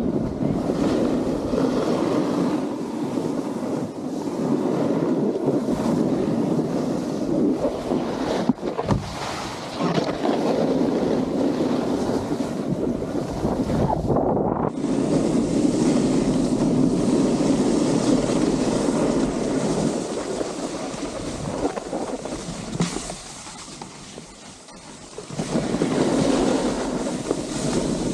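Wind rushing over the microphone and a snowboard sliding and scraping over packed snow, with a sharp knock about eight seconds in and a quieter lull near the end before it picks up again.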